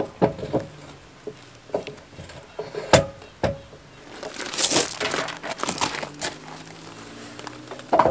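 Electric tongue jack's tube knocking and scraping against the trailer A-frame's jack mount as it is slid down into place: a few separate sharp knocks, then a longer scraping, rustling stretch about four to six seconds in.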